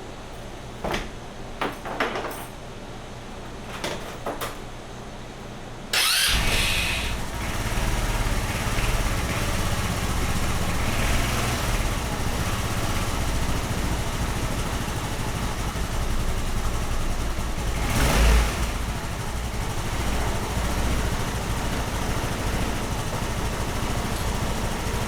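A few short knocks, then about six seconds in a GY6 150cc scooter engine catches and idles steadily on its newly fitted carburetor, with one short louder burst of revs about eighteen seconds in.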